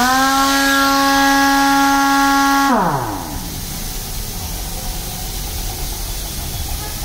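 A 3/4-inch twin-hammer pneumatic impact wrench running free with no load: it spins up quickly to a steady whine, holds it for under three seconds, then winds down as the trigger is released. A steady air hiss continues underneath.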